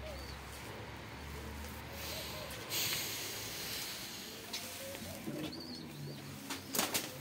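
Domestic pigeons cooing faintly, with a brief hiss about three seconds in and a few sharp clicks near the end.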